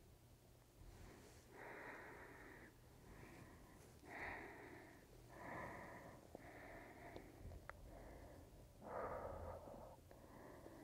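Faint breathing of a person holding plow pose (halasana): soft, noisy breaths about once a second, over a low steady room hum.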